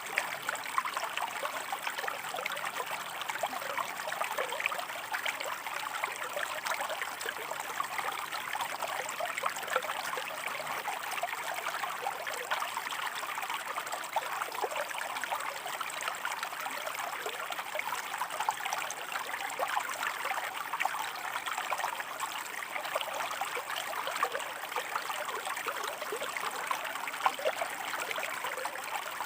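Stream flowing over rocks: a steady babble of trickling water, full of small splashes and gurgles, with no let-up.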